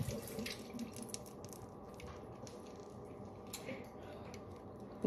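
Quiet room tone with a faint hum and a few faint, scattered clicks and knocks, as of small objects being handled.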